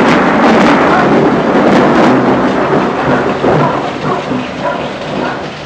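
A loud, close thunderclap rumbling on and slowly fading over the last few seconds, with rain falling underneath.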